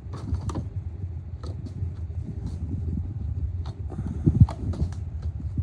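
Irregular light clicks and knocks of hand tools being handled and set down in a toolbox, over a steady low rumble, with a louder low knock near the end.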